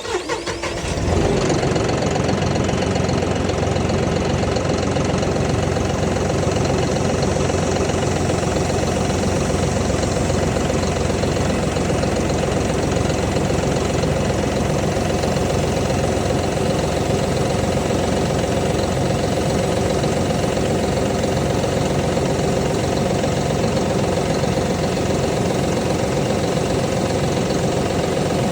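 An engine starts up and then runs steadily.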